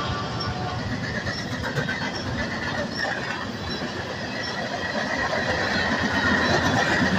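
Freight cars (covered hoppers, tank cars, boxcars) rolling past at speed: a steady rumble and clatter of steel wheels on the rails, with a thin high squeal of wheels that grows toward the end.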